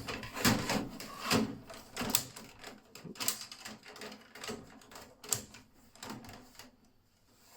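Irregular clicks, clacks and knocks of plastic and metal as a removable hard-drive caddy is handled and pushed back into the drive bay of a beige PC tower, stopping near the end.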